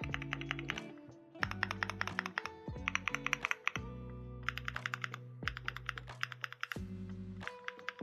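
Mechanical keyboard with Gateron Luciola linear switches and KKB WOB keycaps being typed in quick runs of clacking keystrokes, about six bursts with short pauses between. Background music plays underneath.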